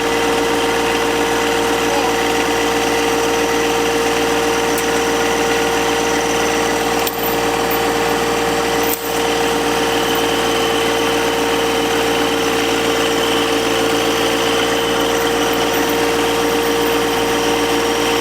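An engine running steadily at a constant speed, a continuous even hum, with two brief drops in level about seven and nine seconds in.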